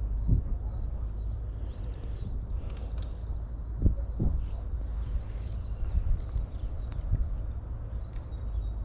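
Small birds chirping faintly over a steady low rumble of wind on the microphone, with a few soft knocks.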